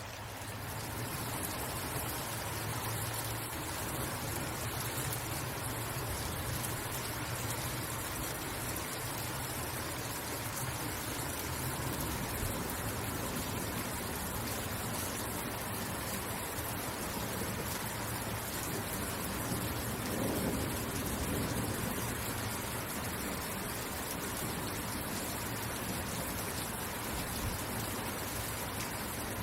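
Steady rain falling, a dense even hiss, with a low rumble underneath that swells briefly about two-thirds of the way through.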